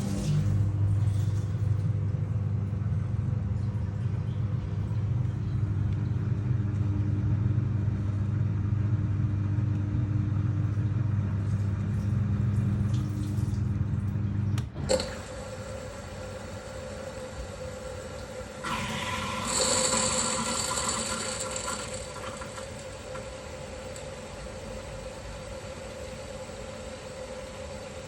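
Asko 1605 dishwasher starting its cycle: a pump motor hums steadily, cuts off with a sharp click about halfway through, and is followed by a quieter steady whine with a rush of water for a few seconds, then steady running.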